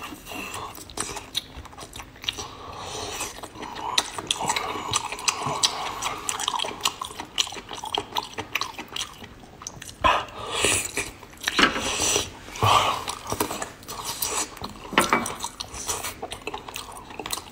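Wet close-up eating of chewy octopus: slurping a tentacle in and chewing it, with many sharp wet mouth clicks and smacks. Several louder slurps or sucks come in the second half.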